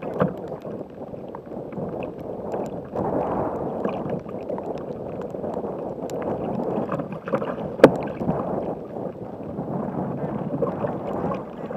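Choppy waves sloshing and slapping against the plastic hull of a Jackson Cuda 14 sit-on-top kayak riding at anchor, surging unevenly. A single sharp knock about two-thirds of the way in is the loudest sound.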